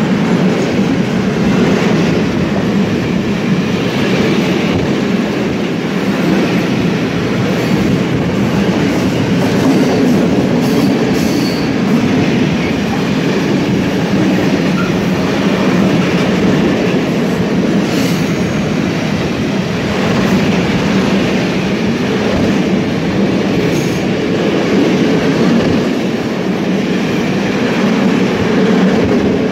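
Freight train of open-top wagons passing at close range: a steady, loud rumble of steel wheels on the rails with a continuous clatter, holding level throughout.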